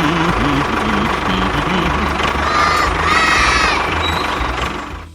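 Small motor of a DIY mini tractor running with a steady whine, under excited voices, with a high squealing cry about two and a half seconds in.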